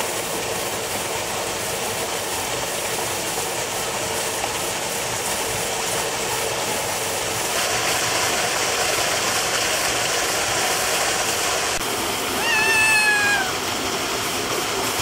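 A kea calls once, about twelve seconds in: a single drawn-out cry lasting about a second, falling slightly in pitch, over a steady background hiss.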